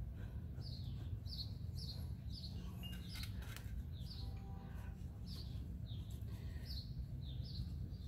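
A bird singing a long run of short, high chirps that each fall in pitch, about two a second, over a steady low background rumble.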